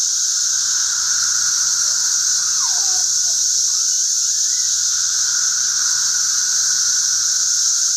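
Dense chorus of periodical cicadas: a loud, steady, shrill drone that never breaks, with a high hiss over a lower whining tone.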